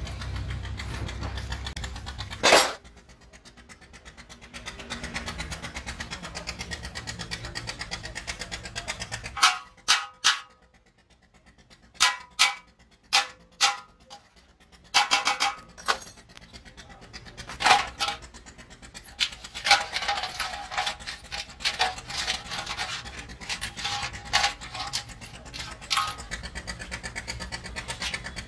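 Truck wheel bearings and small metal parts being scrubbed by hand in a pan of cleaning liquid, clinking and knocking against each other and the pan with some sloshing. A low engine hum runs during the first couple of seconds and ends with a loud knock.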